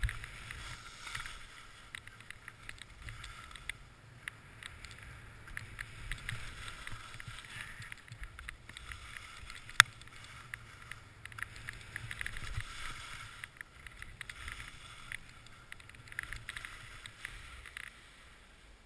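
Skis sliding and carving on groomed snow: a steady scraping hiss broken by many small clicks and chatter as the edges bite through the turns. One sharp click about ten seconds in stands out as the loudest sound.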